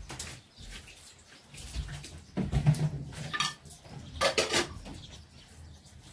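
Short clatters and knocks of household things being handled at a cinder-block floor stove while a small fire is lit, loudest about two and a half and four and a half seconds in.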